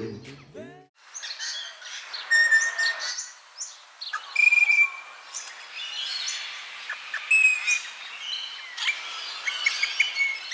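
Birds chirping and singing, many short high calls and whistled notes overlapping over a faint hiss, after a song fades out in the first second.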